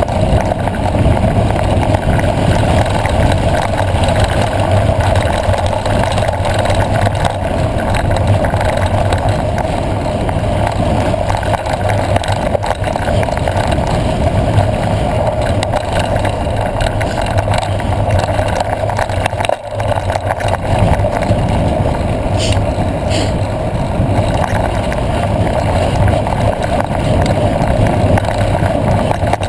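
Steady rumble and rattle of a mountain bike riding fast on a dirt road, picked up by a camera mounted on the bike or rider. Two short high squeaks come a little past two-thirds of the way through.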